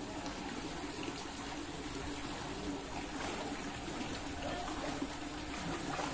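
Water trickling and running steadily.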